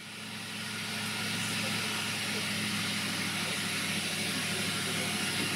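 Narrow-gauge diesel locomotive engine running steadily, with a steady hiss over it, fading in over the first second.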